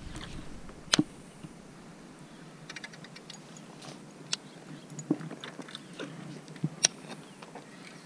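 Scattered sharp clicks and taps from hands working a baitcasting rod and reel, with a quick run of faint ticks about three seconds in, over a faint steady background.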